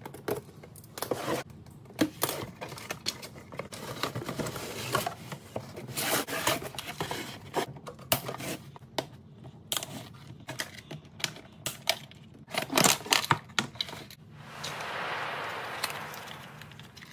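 Cardboard packaging being handled: a run of rustles, clicks and knocks as box flaps and inserts are moved and the plastic truck is lifted out. Near the end comes a longer, smooth scraping sound of cardboard sliding, as a sleeve is worked off a small box.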